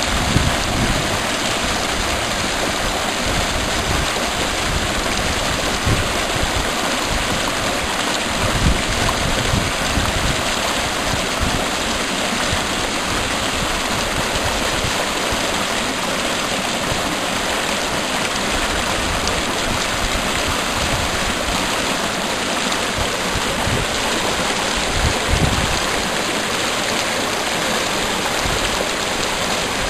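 A mountain waterfall rushing steadily, with occasional low bumps.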